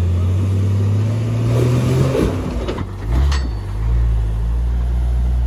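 Lifted Jeep Cherokee's engine running at low revs as it crawls up a rock ledge. The revs dip and rise briefly about two to three seconds in, with a single sharp knock just after.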